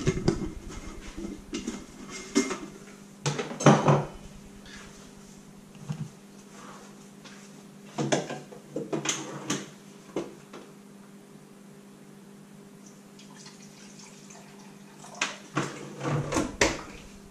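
Kitchen clatter: dishes, utensils and cupboard doors knocking and clinking in a few short clusters, the last near the end, over a steady low hum.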